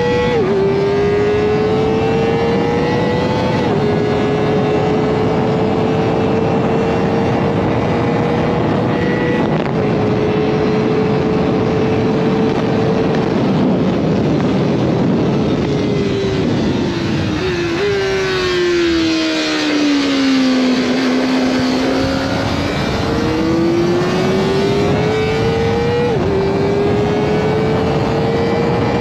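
Kawasaki Ninja ZX-4RR's 399 cc inline-four heard from onboard, revving very high under throttle with quick upshifts, each a sudden drop in pitch. Around the middle the pitch falls for a few seconds as the bike slows for a corner, then climbs again through the gears.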